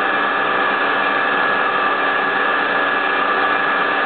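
High-speed CNC milling spindle running a tiny end mill through a plate, a steady whine with several held tones, over the steady hiss of the mist-coolant air spray.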